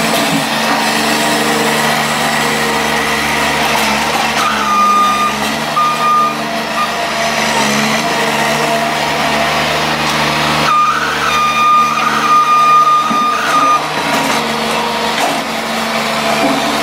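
Bobcat S70 skid-steer loader's small diesel engine running steadily as the machine drives over dirt, with its backup alarm beeping in two spells, a few seconds in and again past the middle.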